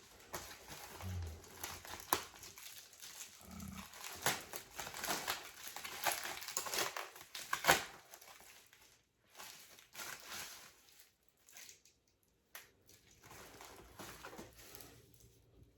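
Packaging rustling and crinkling as a parcel is unwrapped by hand: dense quick crackles for the first eight seconds or so, then sparser, with short pauses.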